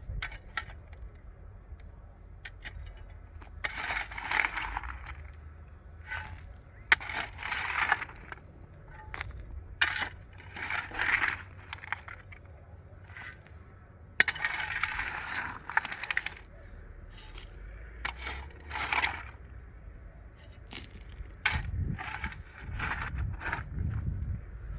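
Irregular scraping and clinking of hard objects, a stroke every second or two, with sharp clicks in between.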